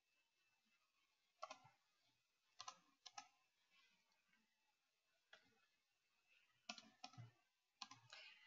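Faint clicking at a computer: about ten short, irregular clicks, some in quick pairs, over near silence.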